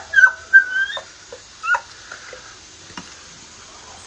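A person making high, thin whining squeaks instead of speaking: a held note in the first second that rises at its end, then a short rising squeak.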